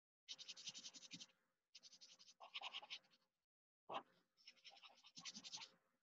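Black marker scratching across paper in several drawing strokes, each a second or so long, with short pauses between; faint.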